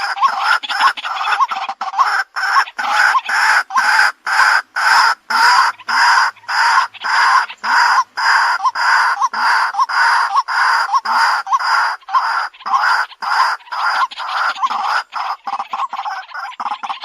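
White-breasted waterhen calling: a steady run of harsh, evenly repeated notes, about two to three a second.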